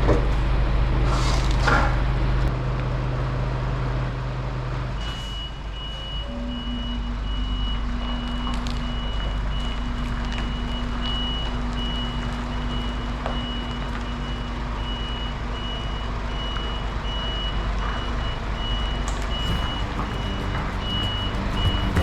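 Lorry engine running, with a short hiss about a second in; from about five seconds in a reversing alarm beeps steadily, about one and a half beeps a second, as the truck backs up.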